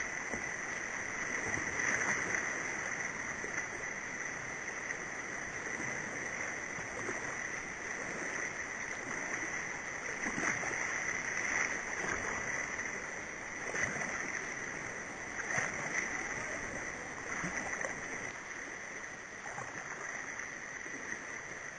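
Whitewater rapids at very high flow rushing steadily around a kayak, with short splashes of water every few seconds.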